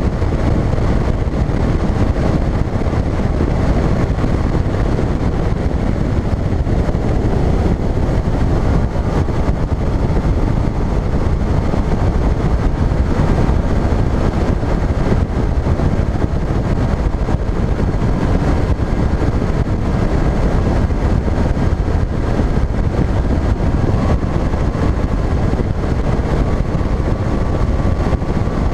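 Bass boat running across the lake on its outboard motor: a steady, loud rush of wind over the microphone mixed with the engine and water noise.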